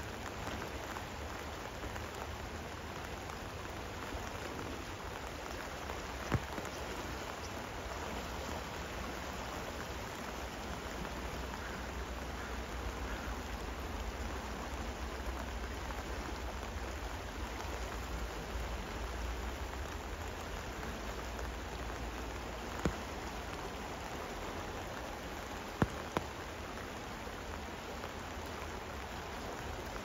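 Steady rain falling, an even hiss broken by a few sharp clicks: one about six seconds in and three more later on.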